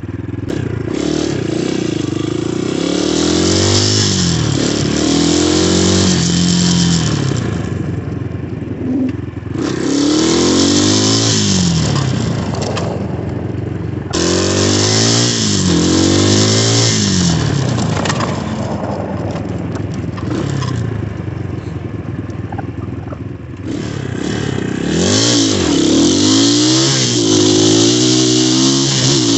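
2019 Xmotos 250cc dirt bike engine under way, revving up through the gears again and again, its pitch climbing and dropping back with each shift. A loud hiss of wind over the microphone comes and goes with the faster stretches.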